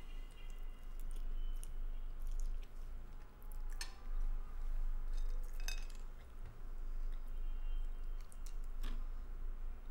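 A metal fork clinking and scraping against a plate a few times, sharpest about four, six and nine seconds in, with chewing between, over a steady low hum.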